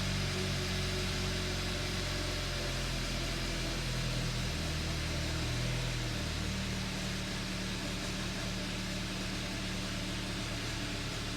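A Hyundai Accent's 1.6-litre four-cylinder engine idling steadily during warm-up, its low idle note shifting about halfway through.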